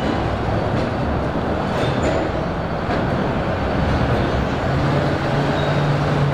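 Subway train running on the elevated line, a steady loud rumble, with a low hum coming in about two thirds of the way through.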